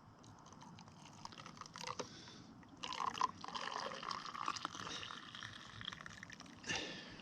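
Freshly brewed hot coffee pouring from a Stanley French press into a cup. A few small clicks and handling noises come first, then the pour runs for about four seconds and ends with a brief louder splash.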